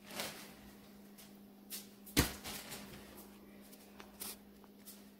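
Quiet room tone with a low steady hum and a few soft knocks and rustles; the loudest is a single thump a little over two seconds in.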